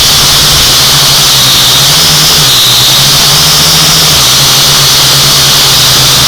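Quadcopter drone's electric motors and propellers whining steadily and loudly, the pitch shifting up and down every second or two as the motors change speed.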